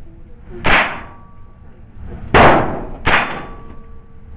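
Three rifle shots from an AR-style rifle at an indoor range, each cracking out and dying away in the room's echo: one about two-thirds of a second in, then two more fired close together about two and a half and three seconds in.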